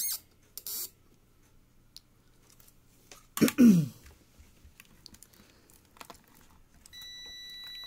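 Soft clicks and handling noises, a short loud voice sound that falls in pitch about three and a half seconds in, and a steady high electronic beep for about a second near the end.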